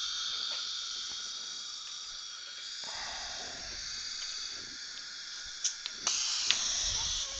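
Steady hiss of dental equipment running, louder and brighter from about six seconds in, with a few sharp clicks shortly before and after.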